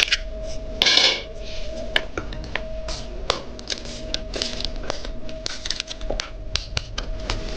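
Irregular small clicks and taps of plastic and metal laptop parts being handled and fitted together during reassembly of the laptop's C-shell, with a louder rustling scrape about a second in.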